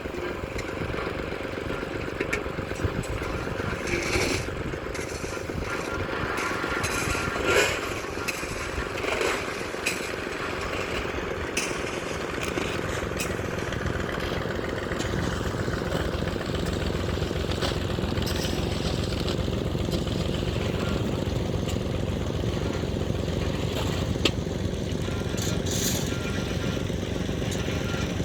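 Steady running noise of a moving vehicle, engine and road noise together, with a few brief louder sounds in the first third.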